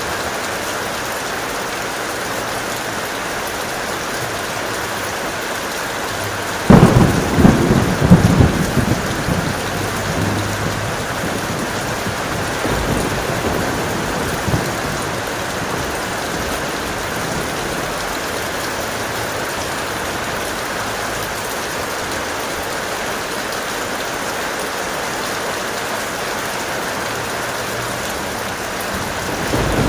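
Steady heavy rain. About seven seconds in, a sudden loud thunderclap breaks in and rolls off in rumbles over the next few seconds, with fainter rumbles a little later.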